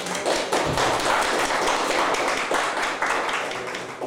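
A small crowd of guests applauding with many quick hand claps, tapering off near the end.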